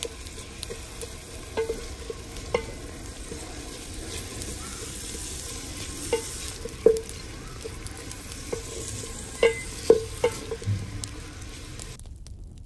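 Curry frying in oil in a metal pot while a steel ladle stirs it: a steady sizzle, with the ladle scraping and knocking against the pot in irregular ringing clinks. The sound cuts off abruptly near the end.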